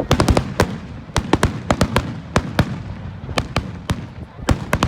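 Fireworks going off: an irregular string of sharp cracks, several a second and often in quick clusters, over a low rumble.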